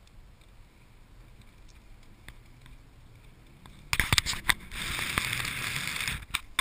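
Audi S6 ploughing through deep snow, heard from inside the cabin: a quiet low engine hum, then about four seconds in a burst of knocks as snow slams onto the windshield, followed by a steady rush of snow spray over the car with the engine rumbling under it.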